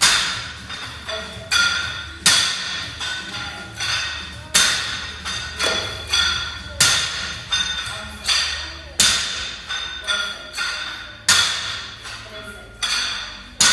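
Loaded barbell hitting the floor once per rep, about every two and a bit seconds, each impact with a short metallic ring, and smaller clinks of the bar and plates in between.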